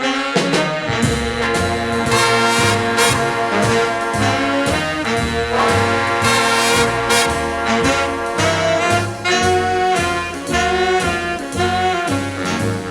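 Background music: a swing-style jazz band with trombones, trumpets and saxophones over a walking bass line.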